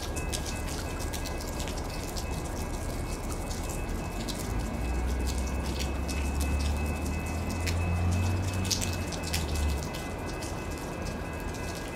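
Rain dripping and pattering, with sharp drops landing close by. A low rumble builds from about four seconds in and cuts off abruptly near the ten-second mark.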